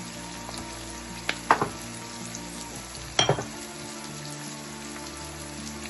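Chopped onion sizzling steadily in hot oil in a nonstick wok. Sharp knocks cut in about a second and a half in and again a little after three seconds.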